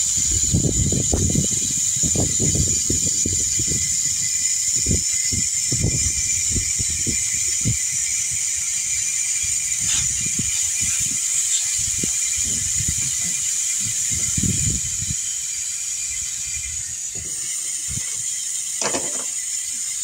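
Wind buffeting the microphone in irregular low rumbles, over a steady high hiss.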